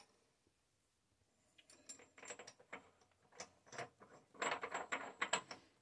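Steel collet being pushed and turned by hand into the spindle nose of a capstan lathe: a run of small metallic clicks and scrapes starting about a second and a half in, thickest near the end.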